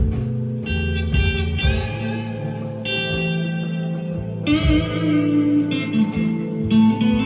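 Squier Deluxe Stratocaster electric guitar on a clean tone, playing single picked notes and short phrases over a backing track with a steady bass line.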